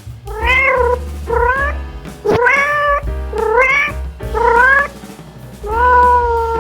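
A cat meowing six times in a row, each meow rising then falling in pitch, the last one longer and flatter, over background music.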